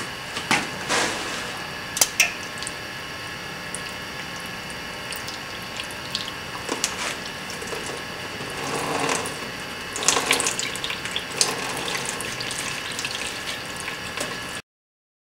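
A rag rubbing and handling a clamped steel rod: a few light clicks early on, then short rustling scrapes of cloth on metal, over a steady hiss.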